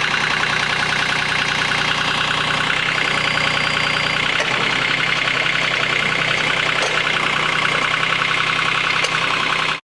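Cub Cadet Yanmar EX3200 compact tractor's diesel engine running steadily under load while working the backhoe, with a steady high-pitched whine over the engine drone. The sound cuts off suddenly near the end.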